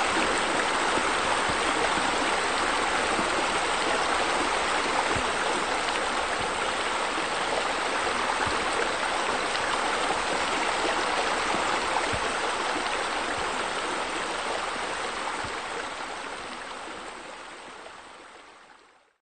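Water pouring steadily from wall spillways into a pool, an even splashing rush that fades out over the last few seconds.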